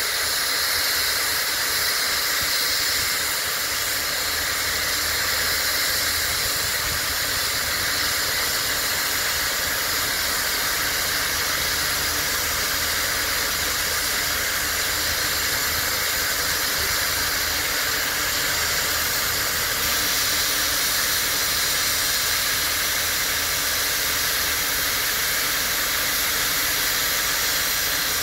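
Polish steam locomotive blowing steam from its open cylinder drain cocks in a steady, continuous hiss, as the engine is cleared through to drive condensed water out of the cylinders.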